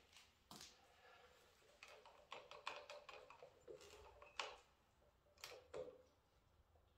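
Faint, irregular clicks and light taps of hands working a motorcycle's handlebar grip and bar-end mirror hardware, with small plastic and metal parts knocking as they are adjusted.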